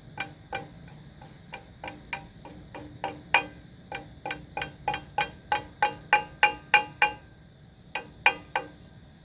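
A hammer tapping on steel plow parts in a run of light strikes, about three a second, each ringing briefly. The taps get louder through the middle, stop about seven seconds in, and start again with a few more strikes.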